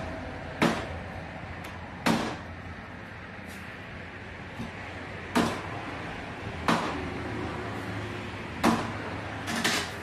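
Butcher's cleaver chopping fresh mutton on a cutting board: about seven heavy strikes at irregular intervals, the last two close together near the end.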